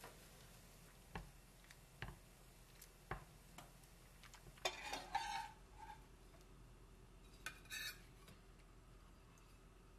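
Metal chopsticks stirring thin somyeon noodles in a small saucepan of water, with a few faint taps and then a quick cluster of clinks against the pot about halfway through. Near the end, a short scrape of a metal spatula on a frying pan as a pancake is slid onto a plate.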